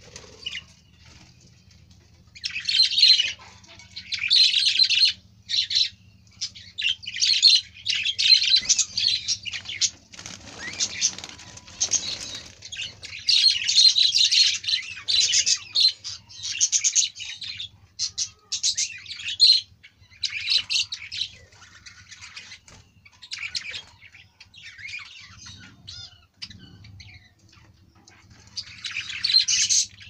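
A flock of budgerigars chattering in busy, scratchy bursts that come and go every second or two with short pauses between.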